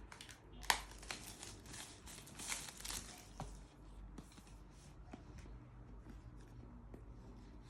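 Packaging being handled and opened: paper and plastic rustling and tearing, with a sharp click about a second in and a denser burst of rustling a couple of seconds later.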